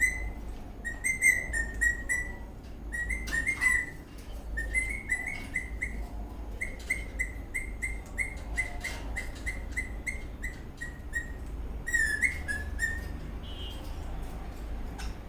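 Eastern rosella parrot whistling a long string of short, high, repeated notes, about two or three a second, with one quick up-and-down warble near the end before it goes quiet for the last couple of seconds.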